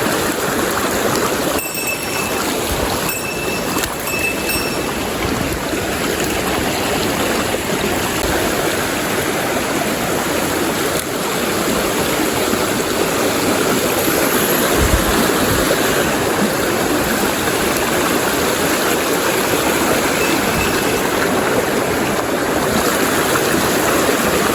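Mountain stream rushing steadily over rocks, a loud even flow of water.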